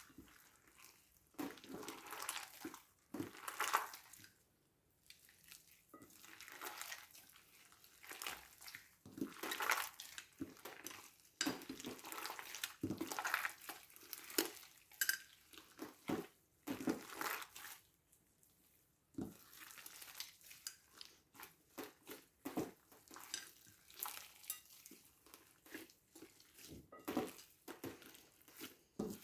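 Slime being mixed by hand, with irregular squishing, clicking and scraping sounds coming in quick uneven bursts, separated by short pauses.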